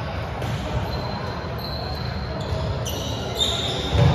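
Volleyballs thudding as they are hit and bounce on a gym floor, with players' voices faintly in the background. The loudest thud comes near the end.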